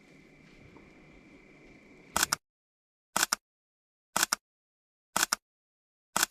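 Faint outdoor ambience with a thin steady high tone. About two seconds in it cuts to dead silence, broken by a sharp double click repeated exactly once a second, five times.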